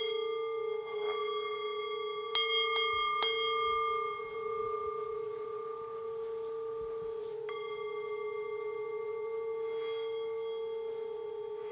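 A struck bell-like metal tone rings on with a slow wavering beat, and is struck again about seven and a half seconds in. Three short clicks fall between about two and three and a half seconds in.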